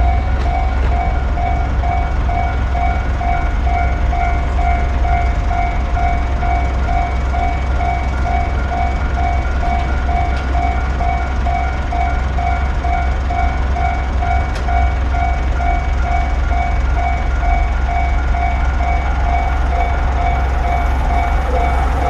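Electronic railway level-crossing warning bell ringing a steady, evenly repeated single-pitched ding, about one and a half strikes a second, over a low steady rumble.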